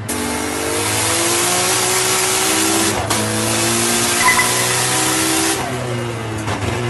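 Nissan Skyline GT-R R32's twin-turbo straight-six under full-throttle acceleration, heard from inside the cockpit. It revs rising through a gear, with a shift break about three seconds in, then climbs again before the driver lifts off near the end and the revs fall.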